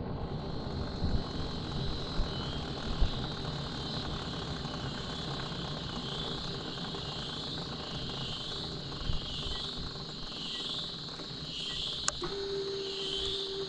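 Suzuki GSX250 coasting with its engine switched off: the drive chain's well-known noise over road and wind rush, with a high swishing that repeats about once a second. A sharp click about 12 seconds in, then a steady hum starts.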